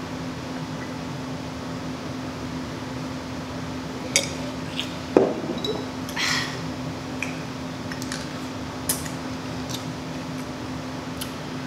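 A few clinks and light knocks of tableware handled at a table, the loudest a dull knock about five seconds in, over a steady fan hum.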